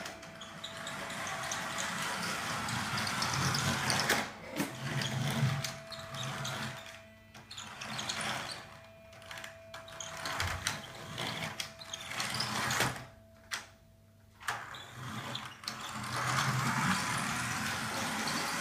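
Mechanical whirring and clattering from a small mechanism, broken by several short pauses.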